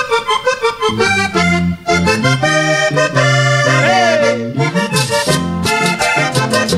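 Vallenato accordion intro on a Hohner button accordion, fast runs of notes over an electric bass line. About five seconds in, scraped percussion joins with a steady rhythm.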